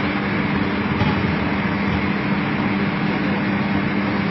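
Coach bus engine running steadily as the bus drives through floodwater, under a continuous even rush of water and road noise, heard inside the passenger cabin.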